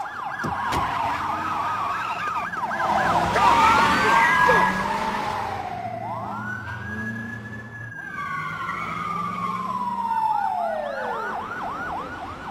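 Several police car sirens sounding at once: fast yelp cycles at the start and again near the end, with a slow wail that rises and then falls in the middle. A rush of noise about three to five seconds in is the loudest part.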